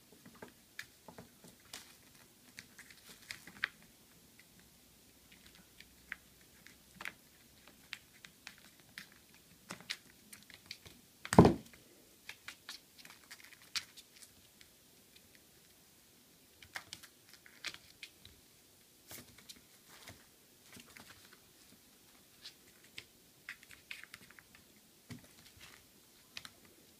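A kitten batting and pouncing on a wine cork across a tabletop: scattered light taps and clicks from the cork and paws, with one louder thump about halfway through.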